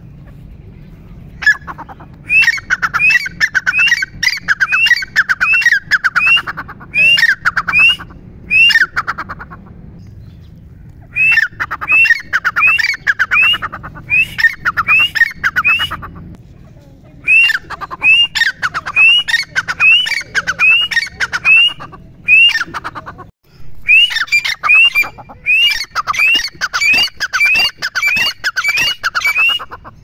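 Grey francolin (teetar) calling: long runs of loud, shrill rising notes, about two a second, in four bouts with short pauses between them.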